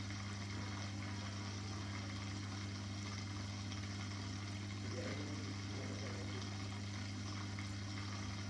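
Aquarium pump running with a steady hum under a constant hiss of moving water.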